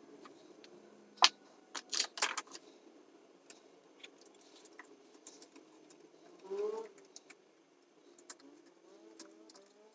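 Sped-up bench work inside a vintage tube amp chassis: sharp clicks and taps of hand tools on wires and components, loudest in a cluster a little over a second in, then scattered lighter ticks, with a short pitched chirp about two-thirds of the way through.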